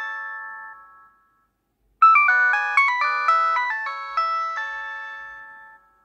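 Nokia mobile phone ringing with a polyphonic ringtone for an incoming call: a melodic phrase of quick notes fades out, a second of silence follows, then the melody starts again about two seconds in and fades away near the end.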